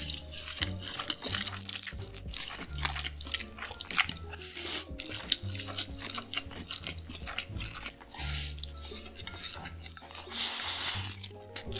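A person slurping and chewing big mouthfuls of red-sauced noodles, with many short wet smacks and clicks and one long slurp near the end, over background music with a steady bass line.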